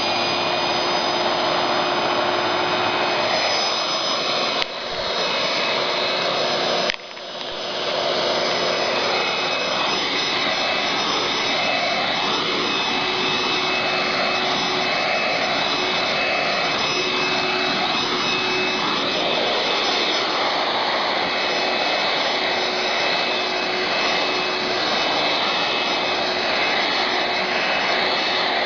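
Hoover Twist Vac, a 2-amp bagless handheld vacuum with a belt-driven brush roll, running steadily with a high motor whine. It briefly dips in level twice, around five and seven seconds in, then comes back up.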